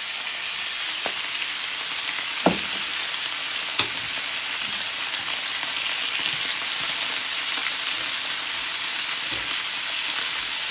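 Roe deer steaks and potato slices sizzling steadily in plenty of oil on a hot griddle pan, with a couple of sharp clicks of the tongs against the pan a few seconds in.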